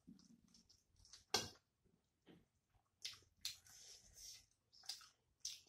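Faint chewing and lip smacks with scattered wet clicks from eating rice and curry by hand, one sharper smack about a second and a half in.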